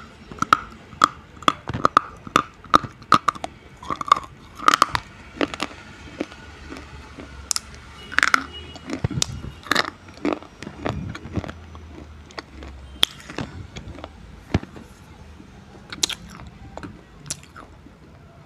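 Meenakshi-brand slate pencils bitten and crunched between the teeth: sharp snaps about twice a second for the first few seconds, then scattered crunches with chewing.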